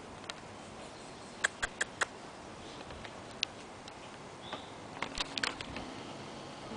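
Scattered sharp clicks over a low outdoor background: four in quick succession about a second and a half in, a single one a little past the middle, and a short cluster near the end.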